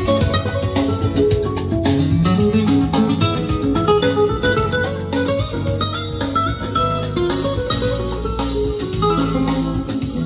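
Guitar-led music with a strong bass line, played through a pair of Pioneer HPM-40 loudspeakers driven by a Scott 2055-A amplifier.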